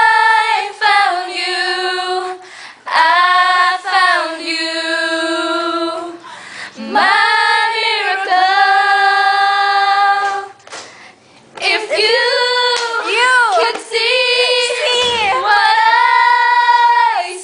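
A small group of girls singing a slow love ballad together without accompaniment, in long held notes with short breaths between phrases. The pitch wavers more in the last phrases.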